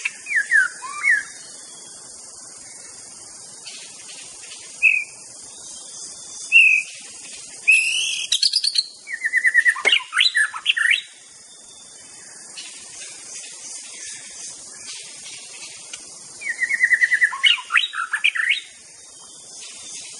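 White-rumped shama (murai batu) singing: short phrases of whistled notes sliding down in pitch and fast trills. The phrases come at uneven gaps, the longest running about three seconds around the middle, over a steady high hiss.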